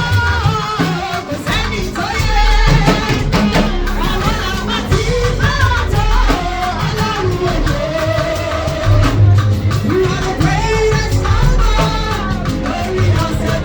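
Music with singing over drums and bass.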